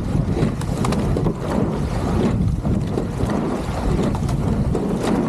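Wind buffeting the microphone on a racing rowing boat under way, over water noise from the moving hull, with a few scattered knocks.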